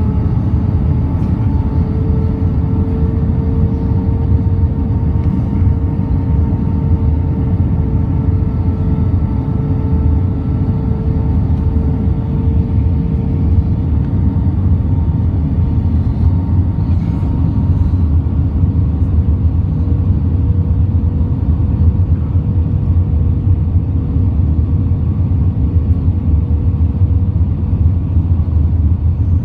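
British Airways airliner noise: a steady loud low rumble with a constant droning hum over it.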